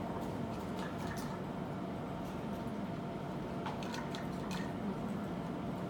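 Steady hum of a room, with scattered light clicks and taps in two small clusters, near the start and a little past the middle.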